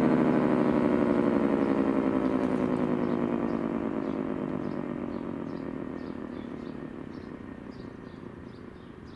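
Thunderbolt 1000ATSC siren chopper winding down after a test run: a wail of several tones sliding steadily lower in pitch and fading. It has a much longer wind down, with the chopper coasting freely.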